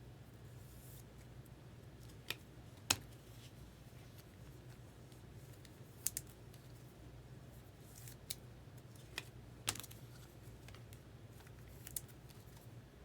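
Trading cards and packaging being handled: a handful of sharp, scattered clicks and snaps, the loudest about three seconds in, over a faint steady low hum.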